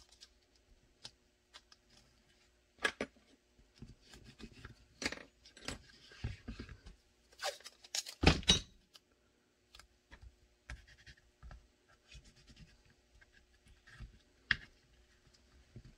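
Hands taping up a pistol-and-flashlight mock-up with blue painter's tape on a cutting mat: scattered clicks, knocks and tape rustling, with a stretch of tape noise partway through and a louder knock about eight seconds in.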